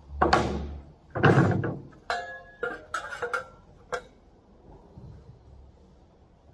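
Sheet metal being handled at a magnetic sheet metal brake. Two loud scraping rustles come first, then a quick run of light metallic clicks and clanks, some ringing briefly, as the sheet is set against the clamping beam.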